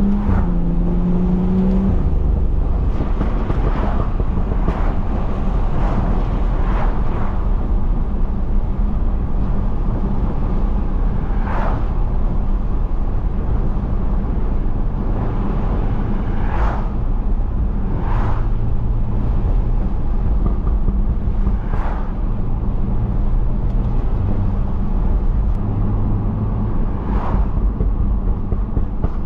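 BMW F30 335i's turbocharged N55 straight-six, stage 2 tuned with a catless exhaust, running at steady low revs while cruising: a continuous low drone heard from inside the cabin. Short, sharp knocks or clicks come every few seconds at irregular intervals.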